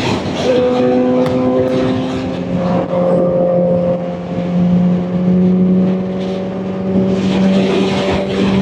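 Kawasaki Ninja ZX-4RR's inline-four engine running under way, with wind noise. Its note drops to a lower pitch about two and a half seconds in and then holds steady.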